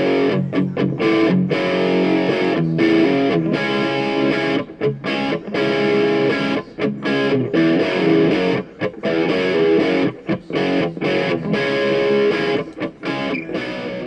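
Background music led by a distorted electric guitar, played in choppy phrases with many short breaks.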